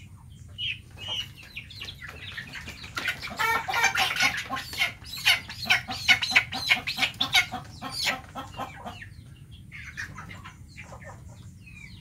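Chickens squawking and clucking as one is caught and held by the wings and legs, with feathers rustling as it struggles. There is a dense run of rapid squawks from about three to eight seconds in, with fewer calls before and after.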